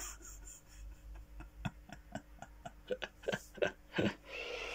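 About a dozen light clicks and knocks at irregular intervals, more of them in the second half, over a faint steady low hum.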